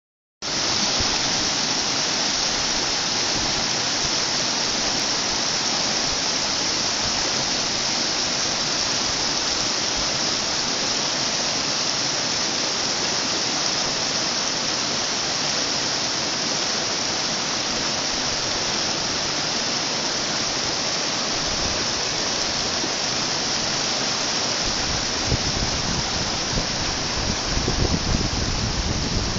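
Shallow stream of inflow water rushing over rocks and snagged branches in small rapids, a steady hiss of white water. A low rumble comes and goes near the end.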